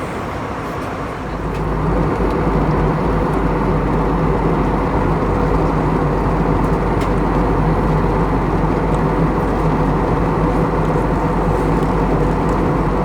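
Airbus A321 cabin noise on descent: a steady rush of airflow with the low hum of the CFM56 engines, growing louder about a second and a half in and then holding steady.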